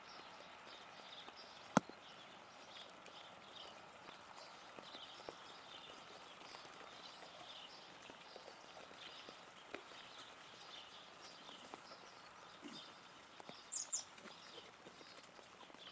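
Faint outdoor rain ambience with scattered drips and ticks, and one sharp click about two seconds in. Near the end a Steller's jay gives a short high call.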